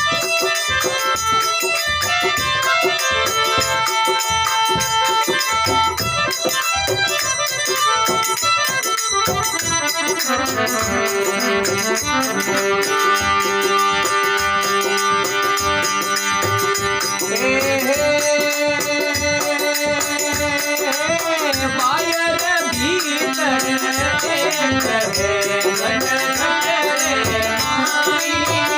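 Instrumental interlude of an Indian devotional folk song: a melody line over a steady rattling percussion beat. Around the middle, sustained held notes come in.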